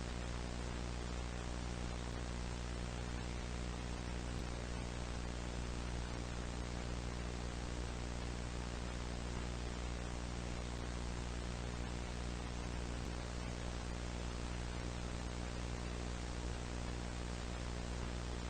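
Steady static hiss with a low electrical mains hum underneath, unchanging: the sound of a dead or faulted broadcast signal.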